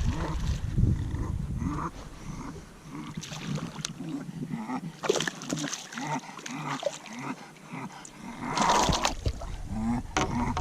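Bulldog panting steadily, about two breaths a second, with a couple of sharper sounds about halfway through and near the end.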